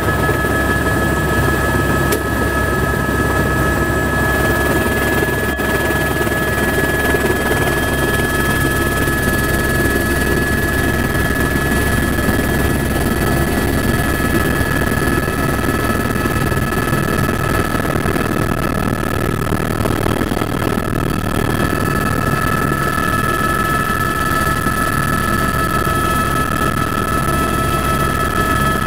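Helicopter turbine engine and rotor running steadily, heard from inside the cabin, with a steady high whine over the rotor noise.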